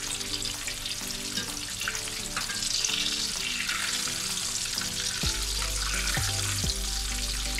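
Breadcrumbed barracuda fillets sizzling as they shallow-fry in a pan of hot sunflower oil, being turned with a fork and spatula.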